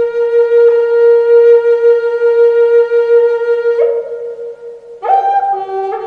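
Background music: one long held note for about four seconds, then a new, higher note begins about five seconds in.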